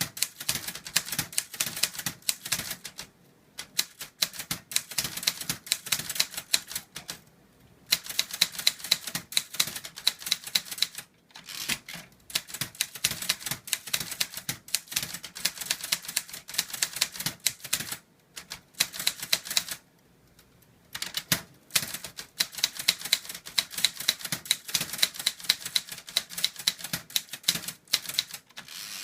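Korean (Hangul) typewriter being typed on: quick runs of sharp key strikes, several a second, broken by brief pauses every few seconds.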